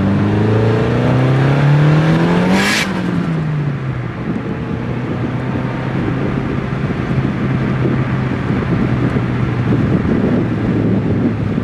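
Nissan 180SX's turbocharged four-cylinder engine rising in revs under acceleration, a short hiss about two and a half seconds in as it shifts up, then running at steady revs in the next gear. Wind and road noise rush over the externally mounted microphone.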